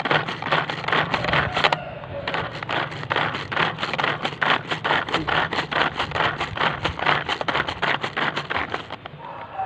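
Pigeon pull-cord vegetable chopper being worked by its string, its spinning blades chopping onion pieces inside the plastic bowl: a rapid run of clattering strokes with a short pause about two seconds in.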